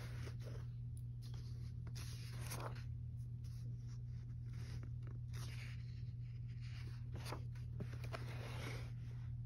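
Coloring-book paper pages being handled and shifted by hand, rustling and sliding in a series of swishes over a steady low hum.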